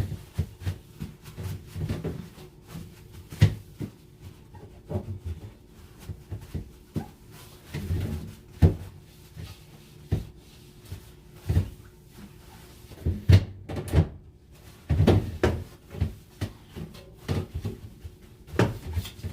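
Containers and jars knocking and clinking irregularly as they are handled and moved about on refrigerator shelves, over a faint steady hum.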